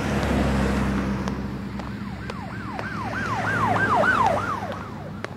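Emergency vehicle siren sounding in quick repeating sweeps, about three a second, starting about two seconds in, over a low rumble of road traffic.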